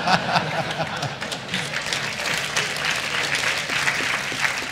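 Audience laughter giving way to a round of applause: many hands clapping.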